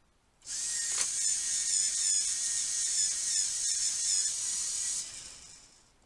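Small electric pencil sharpener whirring as a coloured pencil is sharpened in it, starting about half a second in, its pitch wavering under the load, then dying away near the end.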